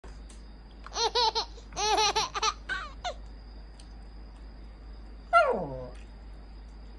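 Toy poodle's grumbling, whining vocalisations: three quick runs of short, high, wavering notes in the first three seconds, then one long whine that falls steeply in pitch a little after five seconds. It is the dog's demanding, attention-seeking whine.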